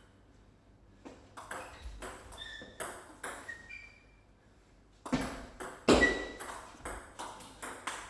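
Plastic table tennis ball clicking off the table and rackets in quick succession, many short pings. After a short pause, two louder hits come about five and six seconds in, then more quick clicks.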